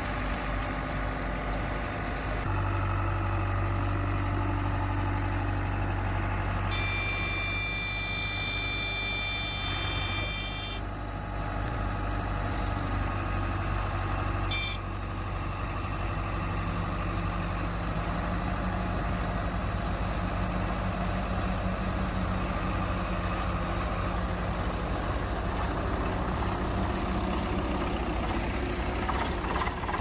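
Diesel engine of a JCB 3DX backhoe loader running steadily with a deep drone while it holds itself up on its boom and bucket. A high steady tone sounds for about four seconds a third of the way in and briefly again a few seconds later, and a tractor engine's hum joins in the second half.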